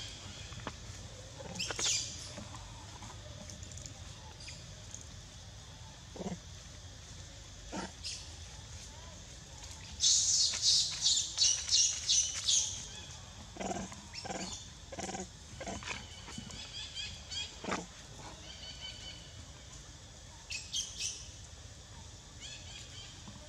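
Short, high-pitched animal squeaks: a rapid series of about a dozen about ten seconds in, with brief bursts near the start and near the end, and a few lower, shorter calls between them, over a steady low hum.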